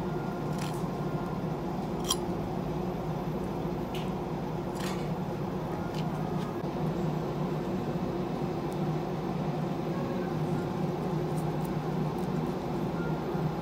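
A steady low mechanical hum runs underneath, with a few soft clicks and squishes from a knife and hands working a raw amberjack on a cloth-covered board.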